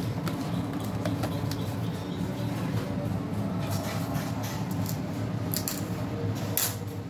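Hands squishing and turning marinated raw chicken pieces in a stainless steel bowl, with light taps, while cornflour is shaken in from a cardboard box, a few sharper clicks near the end. A steady low rumble runs underneath.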